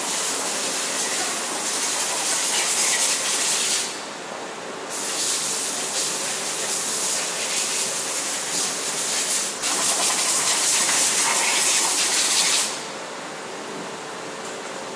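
Loud hissing blasts at a machine tool, three in a row of about four, five and three seconds with short breaks between them, over the steady hum of running machinery.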